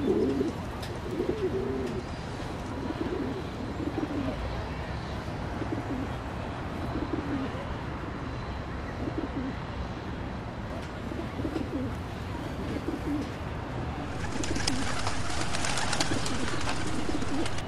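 A flock of pigeons cooing, with low warbling coos repeating about once a second. A louder hissing rush of noise joins in for the last few seconds.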